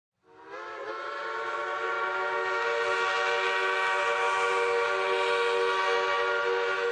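Steam whistle of Shay geared steam locomotive No. 4, blown in one long, steady blast that slides up slightly as it opens a fraction of a second in, then holds.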